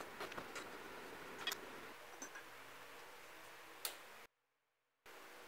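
Faint scattered clicks and taps of small metal lamp parts being handled and fitted by hand, with a sharper click just before 4 s as the brass lamp socket's turn-knob switch is turned.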